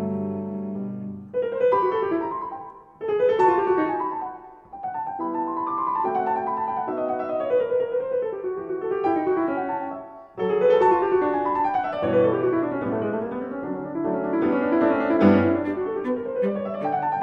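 Classical-style solo piano music playing under the video, in flowing runs of notes that rise and fall, with short pauses between phrases.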